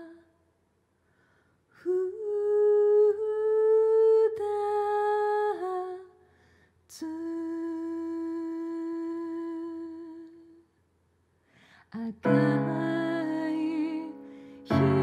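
A singer humming long, wordless held notes, a pair of them and then a single steadier note with short silences between. About three quarters of the way in, a piano enters with sustained chords.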